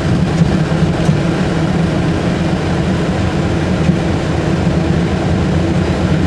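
Steady interior running noise of a Belkommunmash AKSM-84300M trolleybus moving along the road: a constant low hum from its drive and running gear, with road noise.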